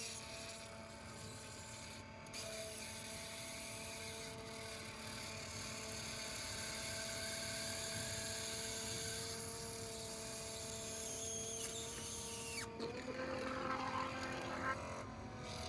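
Small battery-powered pump running steadily with a whine, pumping water and debris out of the condensate drain pan and through the primary drain line. Its pitch steps up slightly near the end.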